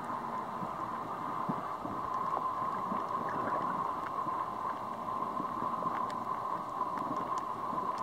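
Underwater ambient sound picked up by a submerged camera over a coral reef: a steady, muffled wash of noise with a constant mid-pitched hum, and a few faint clicks scattered through it.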